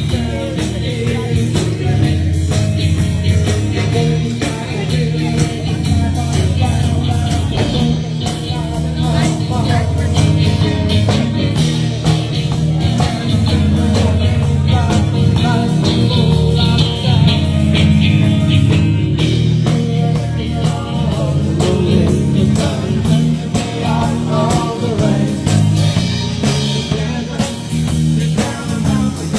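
Live rock band playing a song: singing over electric guitar, bass and drums, loud and continuous.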